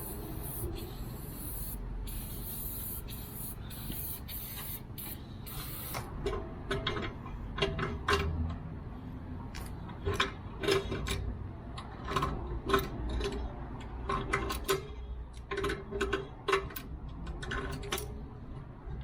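Degreaser being sprayed onto an old air compressor: a high hiss for about the first six seconds, then a run of short spray bursts at irregular intervals.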